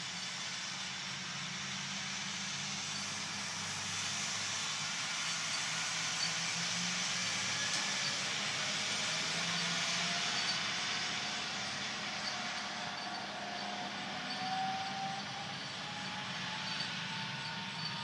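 Distant sugarcane harvesting machinery running: a steady engine drone that grows louder toward the middle and eases off later, with a faint whine slowly rising in pitch in the second half.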